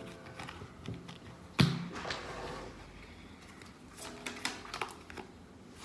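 A deck of tarot cards being shuffled by hand: soft flicks and small ticks of the cards, with one sharp knock about a second and a half in.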